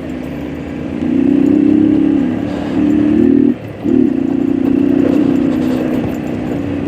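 Honda Titan 150's single-cylinder four-stroke engine pulling under throttle. It revs up about a second in, drops off sharply for a moment just past halfway, then pulls again.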